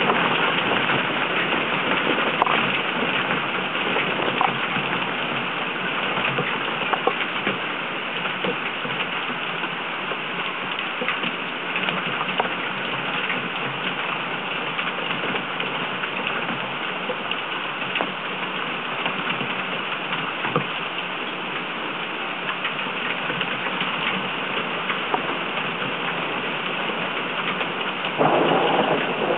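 Heavy storm rain: a steady dense hiss with many sharp ticks of single drops striking close by, getting louder about a second before the end.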